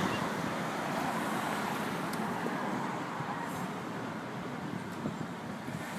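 Steady traffic noise of a city street, an even rumble and hiss without a distinct engine note.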